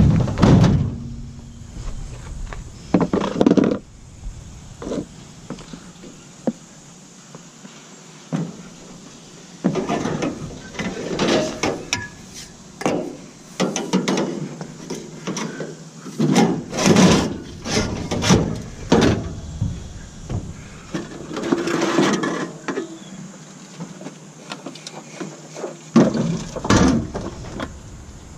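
Scrap metal being shifted and loaded by hand: irregular clanks, knocks and scraping in bouts of a second or two, with short quiet gaps between.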